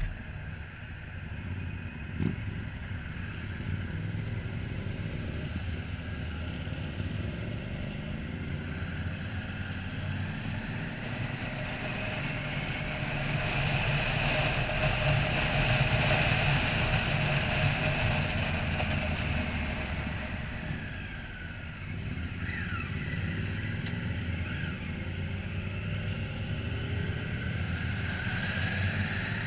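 Motorcycle engine running at road speed, with wind rushing over the bike-mounted microphone. It grows louder for several seconds in the middle, then eases back.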